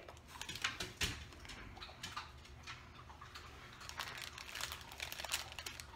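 Packaging being handled: irregular rustling and crinkling with small clicks, fairly faint, over a low steady room hum.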